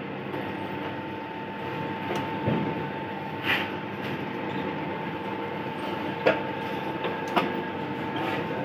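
Stainless-steel noodle-making machine running, rolling a sheet of dough: a steady mechanical hum with a constant whine, broken by a few sharp clicks.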